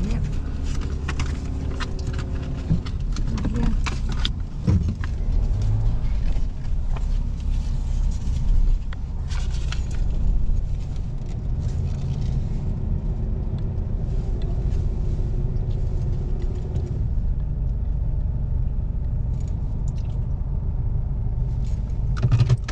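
Low, steady rumble of a four-wheel drive heard from inside its cabin as it drives slowly onto a vehicle barge's ramp and deck, with scattered knocks and rattles in the first half. Later it settles into a steady hum.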